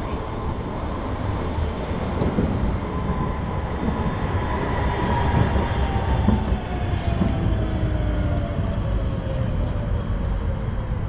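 Tram running past, a steady low rumble with a whine that slowly falls in pitch over several seconds. A thin high steady tone comes in about halfway, with a few light clicks near the end.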